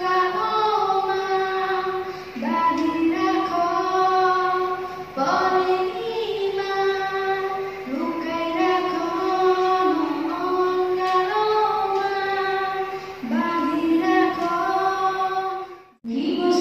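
A schoolgirl singing solo into a microphone, holding long notes in phrases a few seconds long. Near the end the sound cuts off briefly and another child's voice starts singing.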